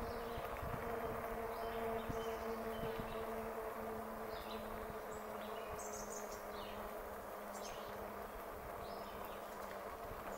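Electric bike's motor humming steadily at one pitch, with wind rumbling on the microphone and short high chirps scattered above.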